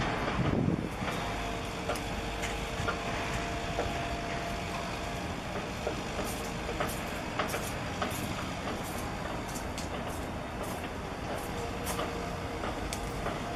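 Steady low rumble of a container ship's engines passing close, with a faint steady hum in the first few seconds and a scatter of short, sharp high ticks in the second half.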